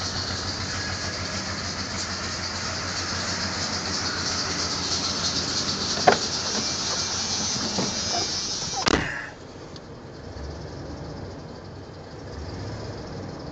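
Dodge truck engine idling steadily, heard with its exhaust pulsing evenly. A few light knocks come near the middle, then the sound drops sharply in level about nine seconds in.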